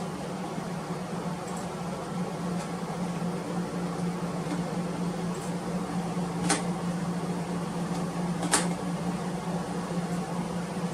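Steady low hum and fan noise of a running desktop PC, with two sharp clicks about two seconds apart.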